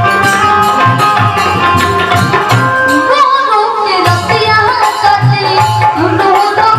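Live Indian folk song: a hand drum keeps a steady beat under long held instrument notes, and a voice comes in singing a wavering, ornamented melody about three seconds in.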